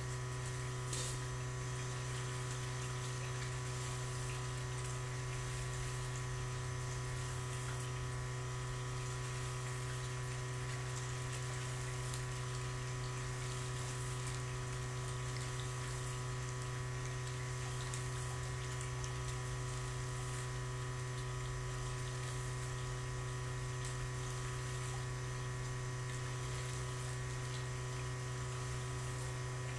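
Steady electrical hum: a strong low drone with several fainter higher tones, unchanging throughout, over a faint even hiss of water.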